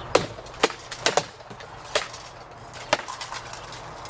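Rattan practice weapons striking, about six sharp wooden knocks at irregular intervals.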